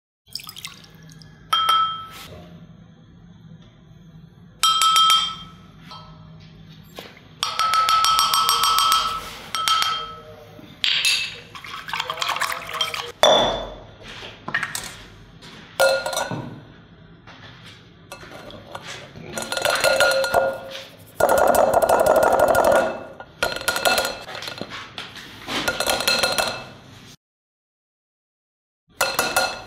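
Kitchenware clinking: glass and ceramic bowls, measuring cups and spoons knocked and set down, many of the clinks ringing briefly. The clinks come in irregular clusters.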